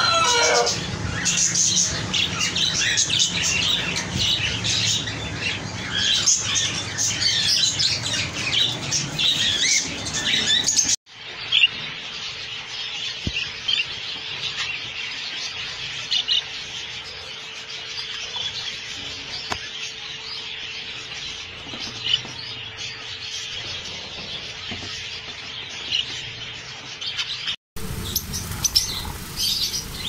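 A flock of caged lovebirds chirping densely and loudly. After a cut about 11 s in, a quieter cage of budgerigars chirps and chatters over a faint steady hum.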